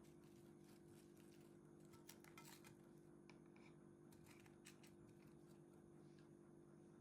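Near silence: a steady low hum, with a few faint clicks and taps about two seconds in and again about four seconds in.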